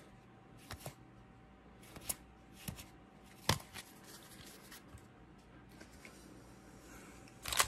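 Paper baseball trading cards handled in the hands: a few scattered soft clicks and slaps as cards are flipped and the stack is squared up, with a louder rustle near the end.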